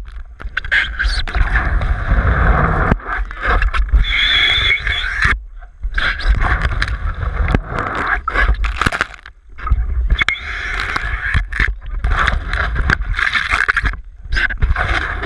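Pool water splashing and sloshing against a GoPro's waterproof housing as it is pushed through and under the water, with heavy rumbling and repeated knocks from water and handling on the housing.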